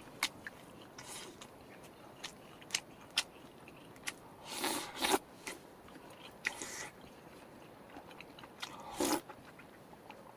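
A person biting and chewing crunchy food close to the microphone: scattered crisp crunches and clicks, with a few louder crunches a little before halfway, around two-thirds through and near the end.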